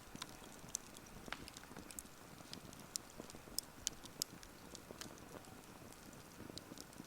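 Wood bonfire crackling: irregular sharp pops and snaps over a soft steady hiss of burning.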